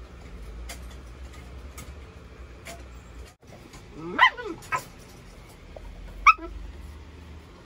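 Siberian husky puppies play-wrestling, with a sharp yip about four seconds in, a smaller one just after, and another near six seconds, over scattered light clicks.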